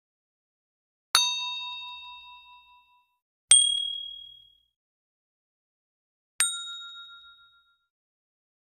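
Three separate ding sound effects from an animated subscribe-button and notification-bell reminder. Each is a sharp strike with a ringing tone that fades over about a second, a couple of seconds apart. The middle one is the loudest and highest.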